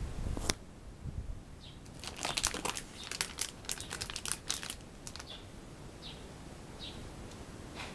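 Plastic packet of a spare bicycle inner tube crinkling as it is handled under the saddle. There is a sharp click about half a second in, and the crinkling is densest from about two to five seconds in.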